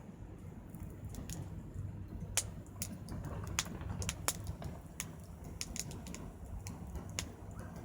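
Small wood fire crackling in a compact fire pit, burning scrap wood and lumber offcuts, with irregular sharp pops and snaps.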